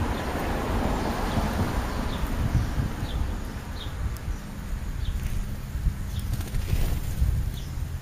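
European starlings feeding at close range: rustling and knocking close to the microphone, with short, high, falling chirps about once a second. There is a brief flutter of wings about seven seconds in as the birds move off.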